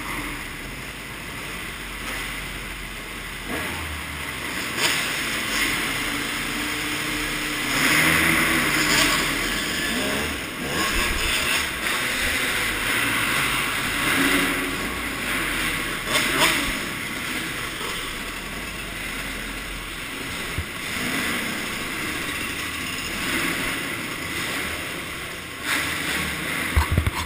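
Motocross motorcycle engine heard on board, running at low revs with its pitch rising and falling a few times as the bike rolls along, over a steady rushing noise. There are a few sharp knocks near the end.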